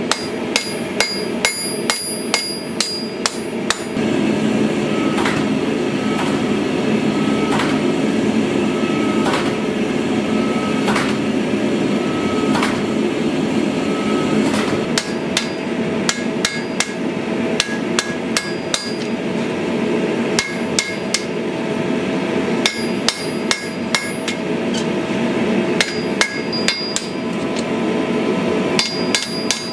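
Hand hammer blows on a glowing steel sword blade, the anvil ringing, about three blows a second, over the steady roar of a gas forge. From about 4 s to 15 s the roar grows louder and a forging machine strikes the blade in slower single blows, about one every second and a half. Then quick hand hammering on the anvil resumes.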